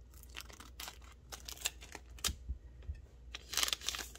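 A foil packet of trading cards crinkling and crackling as it is opened and the cards are slid out. There are scattered sharp crinkles throughout and a denser burst of rustling about three and a half seconds in.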